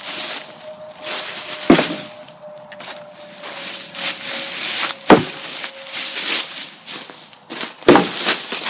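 Footsteps crunching and rustling through dry woodland leaf litter while gathering firewood, with three sharp cracks of dead wood breaking or knocking.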